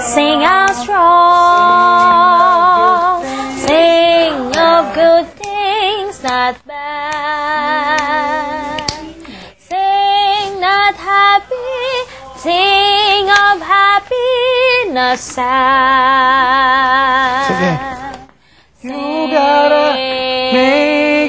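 A woman singing, with held notes carrying a strong vibrato and quick runs between them, breaking off briefly a few times and stopping for a moment about eighteen seconds in before going on.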